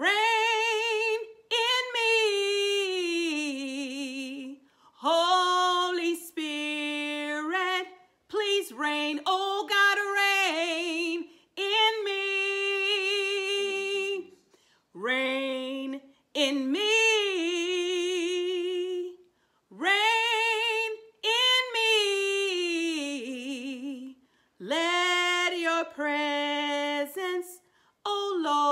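A woman singing a slow worship song alone, unaccompanied. The voice moves in short held phrases with vibrato, with brief breaks between them.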